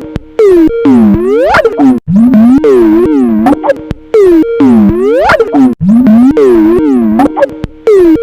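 Skype ringtone looping loudly in a warped, degraded form. Each repeat of about two seconds swoops down and back up in pitch in exaggerated bends, so the tune is badly mangled.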